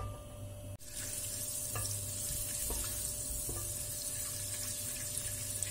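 Butter sizzling as it melts in a stainless steel pot, with faint scrapes and taps of a wooden spoon stirring it. The sizzle sets in suddenly about a second in and then holds steady.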